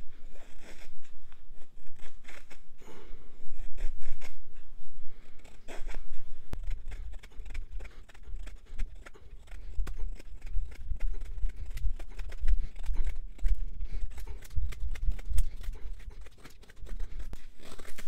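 Kansept Model 6 folding knife blade shaving curls off a pine stick: a long run of repeated slicing strokes of steel paring wood. The pressure behind the strokes builds as it goes on.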